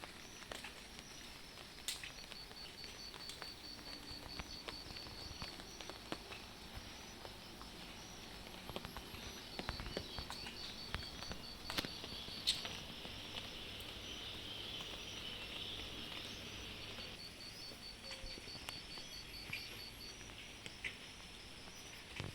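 Steady outdoor rain background with scattered drips and taps, and a high trill in rapid, even pulses that comes and goes several times.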